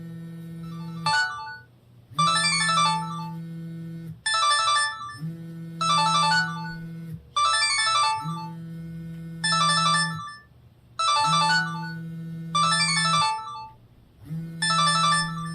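Samsung GT-E2121L mobile phone ringing for an incoming call with a downloaded melody ringtone: a short tune loops about every three seconds, each time over a held low note.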